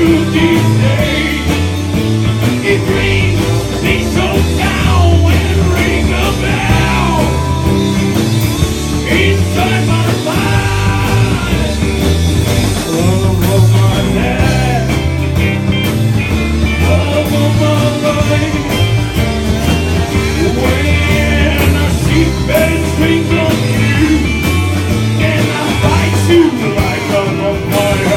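Live country rock-and-roll band playing a song, with a lead voice singing over drums and bass keeping a steady beat.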